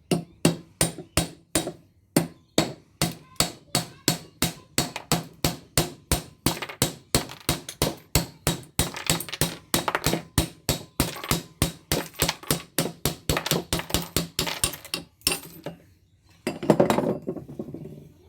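Hammer driving a cold chisel into the steel casing of a light ballast, in a fast even run of sharp metallic blows about three or four a second. The blows stop near the end, and a brief louder clatter follows.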